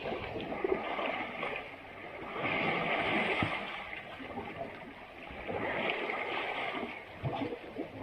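Asian elephants splashing in muddy river water, in swells of a second or two, with scattered short knocks and thuds.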